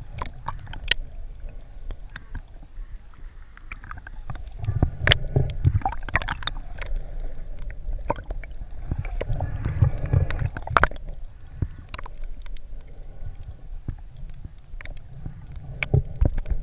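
Underwater sound through a GoPro Hero3's waterproof housing: a muffled low rumble of moving water with scattered clicks and crackles, and a louder gurgling surge about every five seconds.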